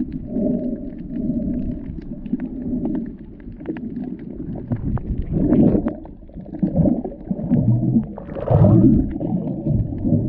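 Muffled underwater sound picked up by a camera held below the surface: uneven low rumbling and swishing of moving water, with scattered faint clicks.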